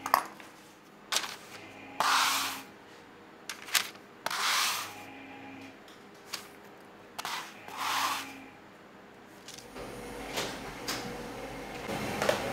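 Fresh ravioli being slid off a plastic pastry scraper onto a parchment-lined baking tray: a sharp click followed by a short rustle of paper, three times about three seconds apart. Near the end a steady kitchen hum comes up.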